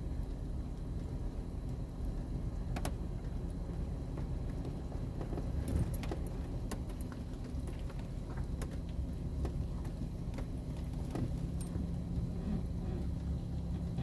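Cab interior of a four-wheel-drive vehicle crawling slowly over a dirt and rocky trail: a steady low engine and tyre rumble, with scattered clicks and jangling rattles from loose things in the cab as it bounces.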